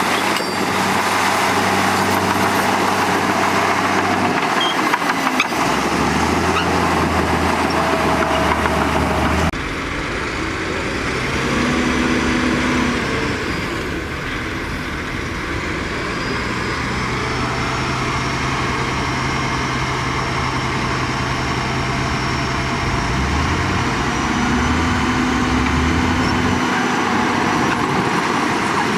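Diesel engines of heavy earthmoving machinery, a bulldozer and dump trucks, running and working steadily. The sound changes abruptly about nine and a half seconds in.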